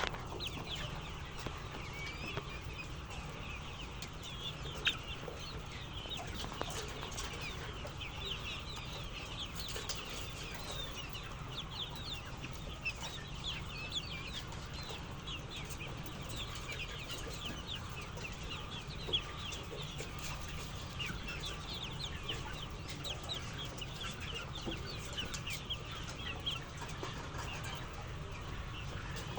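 A flock of chickens clucking and calling, many short calls overlapping continuously, over a steady low hum.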